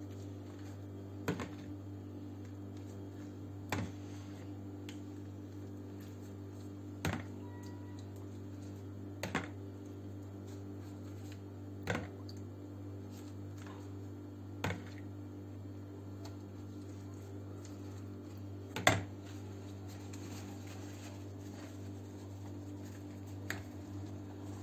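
Metal spoon clicking against the rim of a plastic bowl every two to three seconds as sauce is scooped out, over a steady low hum.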